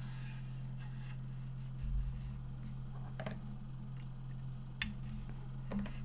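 Sparse, muted keystrokes on a full-size mechanical keyboard with Boba U4 Silent Tactile switches on a polycarbonate plate, a few scattered presses rather than steady typing. There is a low bump about two seconds in and a steady low hum underneath.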